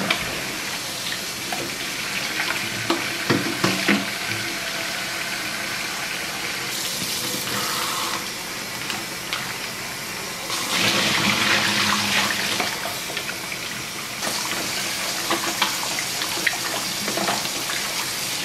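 Kitchen tap running steadily into a stainless steel sink while hands rinse raw chicken in a plastic bowl under the stream. The water gets louder for a few seconds a little past the middle, with a few light knocks around three to four seconds in.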